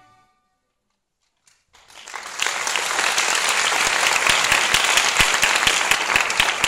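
The last held chord of a bowed string ensemble dies away, followed by about a second and a half of silence. Then the audience bursts into applause, quickly building and staying loud and steady.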